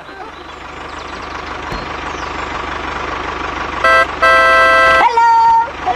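Tractor engine chugging steadily and growing louder as it approaches, then a horn honks, a short toot followed by a longer blast about four seconds in, and a shorter bending tone near the end.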